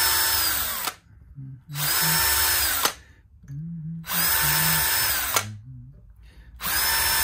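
DeWalt cordless drill run in four short bursts, each spinning up, holding a steady whine and winding down, as it drills small pilot holes for the tuner screws in a wooden guitar headstock.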